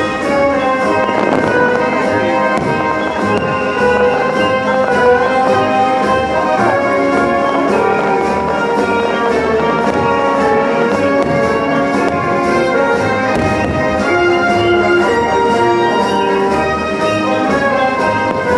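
Orchestral music with prominent brass, playing continuously as the soundtrack of a fireworks show.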